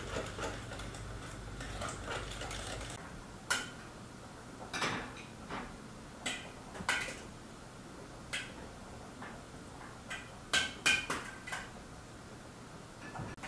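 A hand whisk beating batter in an enamel pot, a quick run of clicking for about three seconds. Then a metal ladle clinks against an enamel pot about ten times at uneven intervals.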